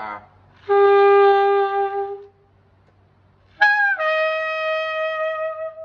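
Tenor saxophone playing two held notes, each about a second and a half to two seconds long. The second is higher: a brief higher squeak at its attack drops and settles onto the altissimo high F sharp.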